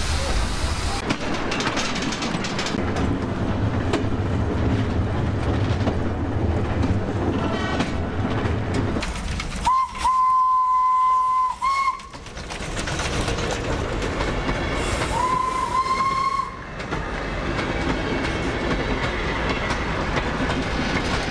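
Small steam locomotive running with its passenger carriages, wheels clattering on the rails. About ten seconds in, its steam whistle sounds one steady blast of about two seconds, then a shorter blast a few seconds later.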